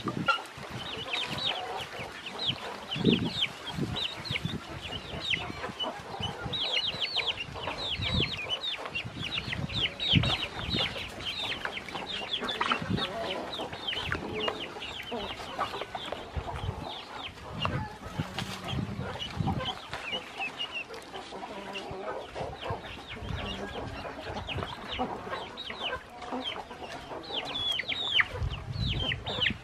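A brood of ducklings peeping non-stop, many short high chirps that fall in pitch and overlap, with light splashing and soft knocks in the water of a plastic basin as they swim.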